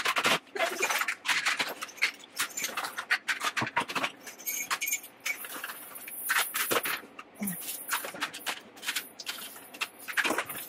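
Irregular clattering and scraping of hard plastic toys being handled in a dishwasher's racks, with many small knocks and clicks.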